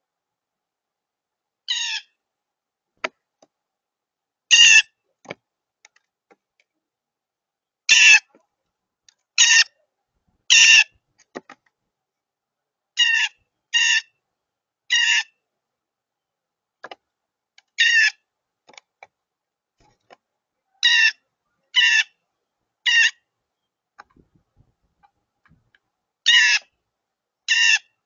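Blue jay calling loudly: about fourteen short jay calls, some single and some in quick runs of two or three, with pauses of a few seconds between them.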